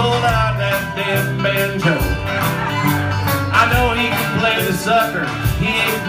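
A live country-rock band plays with a steady drum beat: banjo, acoustic and electric guitars, and a voice at the microphone.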